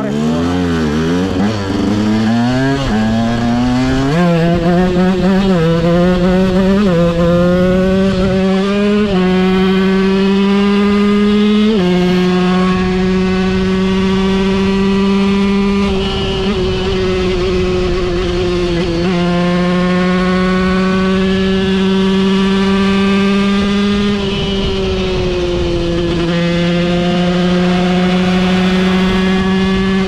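KTM 125 EXC single-cylinder two-stroke with an FMF Shorty silencer, revved up and down quickly and then accelerating hard through several gears, with a short dip in pitch at each shift. It then holds a steady, high-revving note, easing off briefly a few times.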